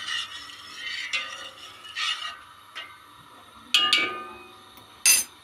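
Kitchenware clinking: a few light knocks, then a sharp metallic clink that rings briefly about four seconds in and another clink near the end, like a utensil or lid striking a pot.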